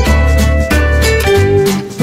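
Background music: a strummed plucked-string instrument over a bass line and a steady beat.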